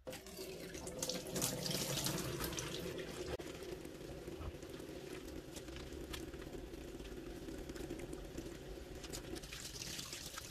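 Water tap running into a stainless steel sink, splashing steadily as hands are rubbed and rinsed under the stream.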